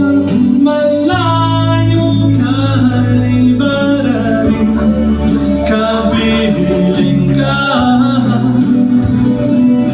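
Background music with a male singing voice over sustained bass notes and a steady beat.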